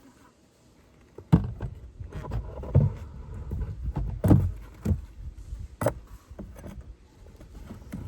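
Knocks and scraping from beehive frames and hive parts being handled, with sharp knocks about a second in, near the middle and again a little later, over low rumbling handling noise.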